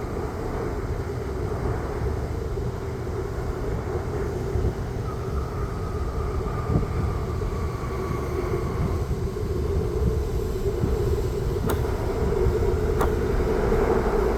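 Jet airliner engines running: a steady rumble with a faint high whine in the middle that falls slightly, and two sharp clicks near the end.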